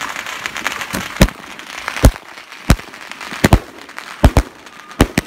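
Aerial firework shells bursting overhead: a run of sharp bangs, about nine in five seconds, some coming in quick pairs.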